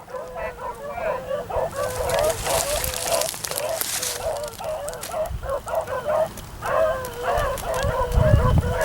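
A pack of beagles baying, many overlapping bawls repeating without a break: hounds giving tongue while running a rabbit.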